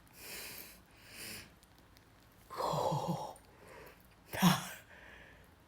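A person's breathy vocal sounds: four short whispered or sighing exhalations, the last a sharp, loud puff of breath near the end.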